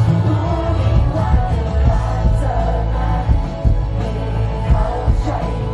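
Live band performance: a male lead singer singing into a handheld microphone over a full band, with a heavy, steady bass.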